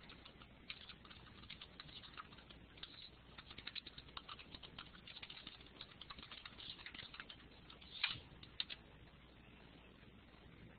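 Faint typing on a computer keyboard: rapid, irregular key clicks with a slightly louder cluster about eight seconds in, stopping about a second later.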